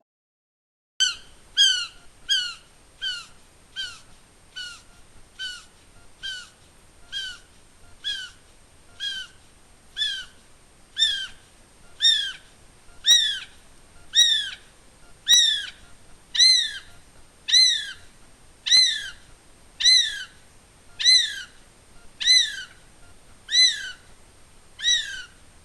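Male North Island brown kiwi calling: a long series of over twenty shrill whistled notes, each falling in pitch. The notes come quickly at first and then slow, lengthen and grow louder. This repeated whistle is the male's territorial call.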